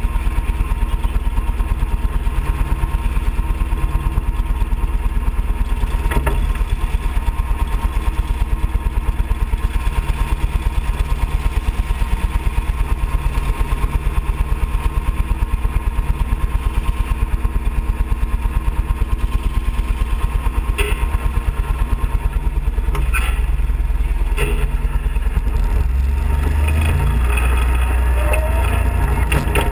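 Small engine of an off-road kart (dune buggy) idling close by, with a fast, even pulse. Near the end the engine note rises and changes as the kart pulls away.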